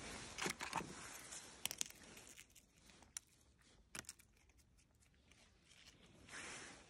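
Faint rustling and crinkling with a few sharp clicks, busiest in the first two seconds, with a shorter patch of rustling near the end.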